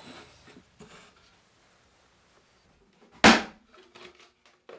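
A single loud, sharp knock of wood on wood about three seconds in, with a short low ring after it. Soft taps and handling sounds from pine boards and nails come before and after it.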